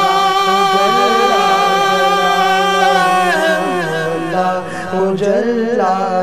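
Male voices singing a devotional hamd, chanted: a steady held drone underneath an ornamented melody line that bends and slides.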